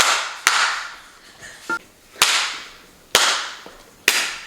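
Cake batter being whipped by hand in a bowl: five sharp, irregularly spaced strokes against the bowl, each trailing off in a short swishing hiss.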